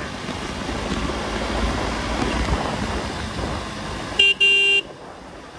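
A vehicle horn sounds twice in quick succession about four seconds in, a short beep and then a longer one, over steady wind and riding noise from a motorcycle at speed.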